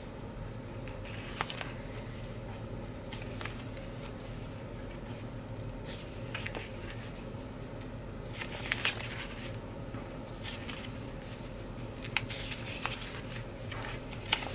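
Sheets of a Happy Planner sticker book being handled and turned: scattered brief papery rustles and light ticks over a faint, steady low hum.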